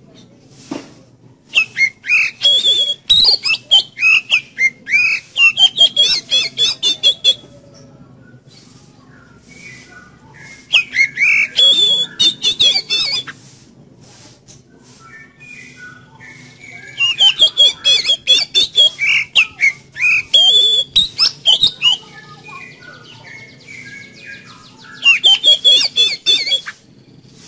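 Oriental magpie-robin singing: four loud bursts of rapid, varied whistles and trills, with softer scattered notes between the bursts.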